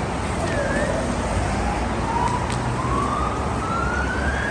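An emergency-vehicle siren wailing, its pitch sliding slowly down and then rising steadily higher, over a steady rushing street noise.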